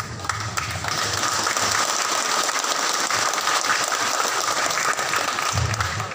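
Audience applauding: steady clapping from a large crowd that builds in the first second and dies away near the end.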